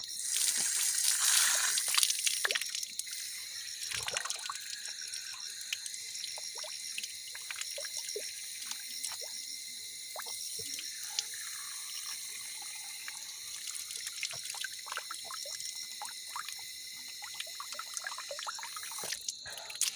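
Water from an outdoor tap running and splashing, loudest in the first few seconds, then trickling and dripping. Crickets chirp steadily behind it.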